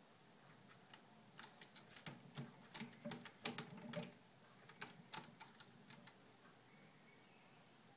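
Cat clawing at a sisal-rope scratching post: a run of quick, irregular scratches and clicks that starts about a second in, is busiest in the middle and thins out near the end.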